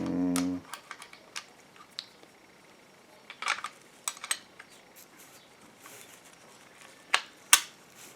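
Scattered small clicks and taps of the BMW E90 rear door lock actuator's small plastic and metal parts being handled and fitted together by hand. The sharpest clicks come near the end.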